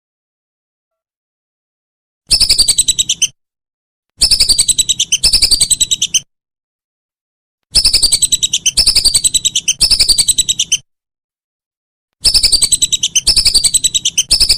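Recorded bird calls played as song-training (masteran) audio: loud, rapid trills of quick descending notes, about ten a second, in phrases about a second long. The phrases come in four bouts of one to three, with clean silence between the bouts.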